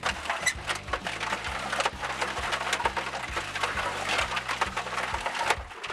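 Small electric concrete mixer turning, with wet chunks of broken stone tumbling and clattering in its drum over a low motor hum. The tumbling is meant to break the stone down, but it only rounds the pieces into pebbles.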